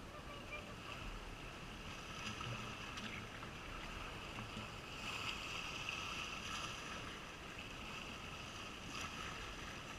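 Steady outdoor seaside ambience: a constant wash of sea and wind, with no distinct single events.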